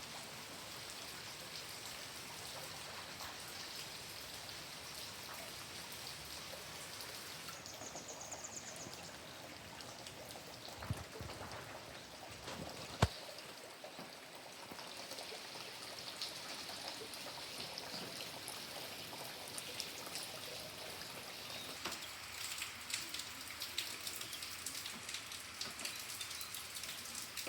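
Rain falling with a steady patter of drops, the drips growing denser and more distinct near the end. A couple of sharp taps come about halfway through.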